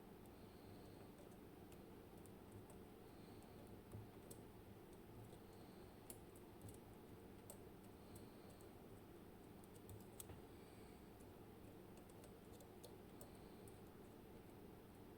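Faint, scattered small clicks of a lock pick working the springless sliders inside an M&C Matrix dimple lock cylinder, after its pins have been set.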